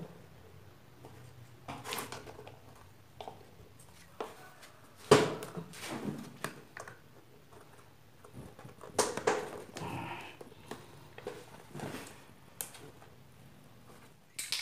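Scattered knocks and clicks of small PVC pipe pieces being handled and pressed onto a board as they are glued together, the loudest knock about five seconds in.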